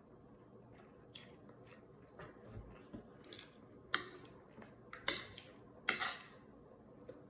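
Metal fork and spoon scraping and clinking on a ceramic plate while scooping up fried rice: a handful of short, sharp scrapes from about four seconds in, with soft chewing before them.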